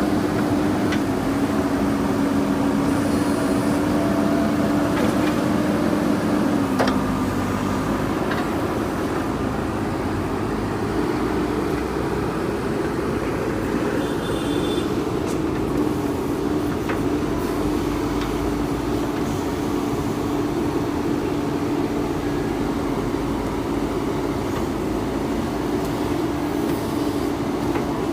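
Diesel engine of a JCB 3DX backhoe loader running under load while digging, a steady drone whose pitch dips about seven seconds in and rises again a few seconds later.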